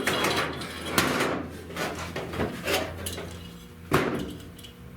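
Hand-work noises from mixing and applying seam sealer: a spreader scraping and tapping against a board and the sheet metal, with two sharp knocks, about a second in and about four seconds in.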